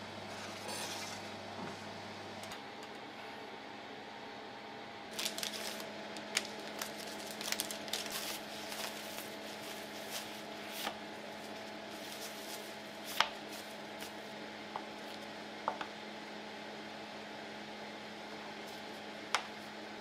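Plastic film crinkling and crackling as it is peeled off frozen puff pastry sheets, over a steady low hum. A few single sharp clicks follow in the second half.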